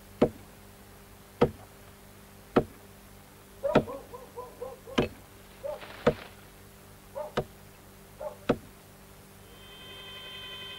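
Axe blows chopping into a tree trunk: eight sharp strikes a little over a second apart, with short pitched squeaks between some of them. Near the end a steady high ringing tone fades in and grows louder.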